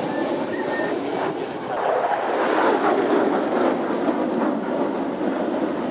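F-16 fighter jet flying past overhead with a steady rushing jet-engine noise that swells about two seconds in.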